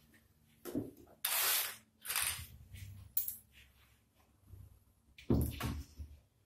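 Tool-handling knocks and rattles as a cordless drill-driver is picked up and set against a clamped melamine corner, with a short drill-driver run about five seconds in, starting a pocket-hole screw.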